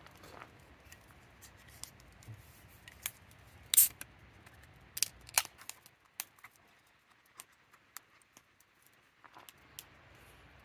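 Irregular sharp clicks and taps of small objects being handled, the loudest about four seconds in and two more strong ones about a second later.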